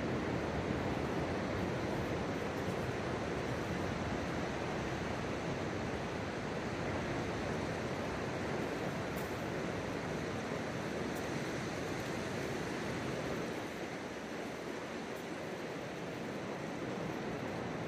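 Ocean surf breaking and washing in at low tide: a steady, even rush of waves.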